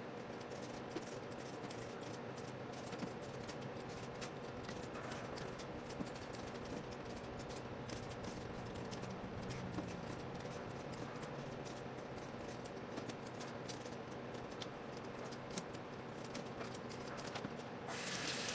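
Raw potatoes being cut into fries with a knife on a cutting board: irregular light knocks and scrapes of the blade going through the potato and tapping the board.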